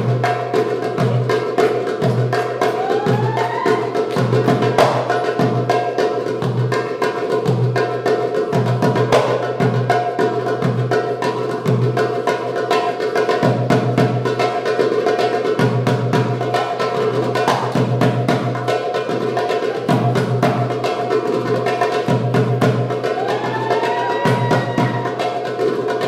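Darbuka drum solo played live in a fast, driving rhythm of deep low strokes and sharp, high rim strokes. Twice a short rising tone sounds over the drumming, once near the start and once near the end.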